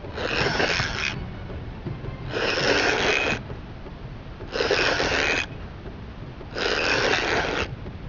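Fishing reel being wound in repeated strokes while a fish is brought in: four rasping whirs about a second long, one every two seconds or so, over a low steady rumble.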